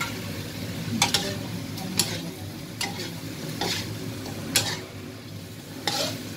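Pork cubes sizzling as they brown in a frying pan, stirred with a metal spoon that scrapes the pan about once a second, six strokes in all.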